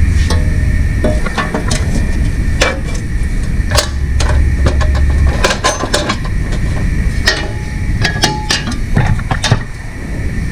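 Metal hand tools clinking and knocking against engine parts in a string of separate sharp strikes, over a steady low rumble.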